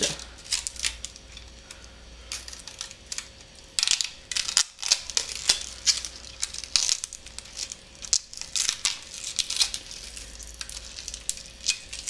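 Clear protective plastic film being peeled off a graphics card's cooler shroud, crinkling and crackling irregularly.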